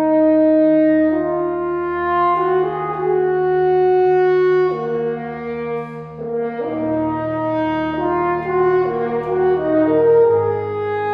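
French horn playing a slow melody of long held notes, over a low sustained note underneath that steps down partway through. A brief break between phrases comes about six seconds in.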